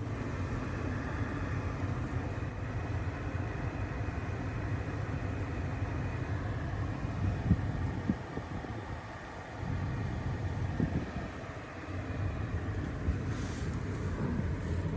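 Steady low rumble with a hiss inside a car's cabin, with a few light knocks about halfway through.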